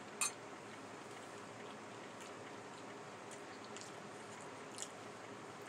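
A metal spoon clicks once against a glass bowl of soup just after the start, then faint chewing and mouth sounds over a steady low hiss, with another small click near the end.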